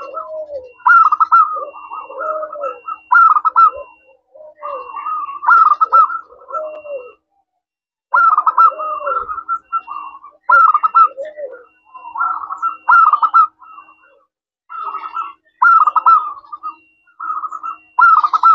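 Zebra dove (perkutut) cooing. It repeats its phrase over and over: each is a rapid run of staccato coos lasting about a second, followed by a short pause, with a longer silence a little past halfway.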